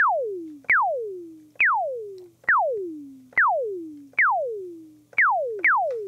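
Sine tone from the iZotope Iris 2 soft synth, played as eight quick notes, each starting with a click and diving fast from high to low pitch as it fades: an envelope sweeping the pitch down, the beginnings of a pew-pew laser blaster sound effect.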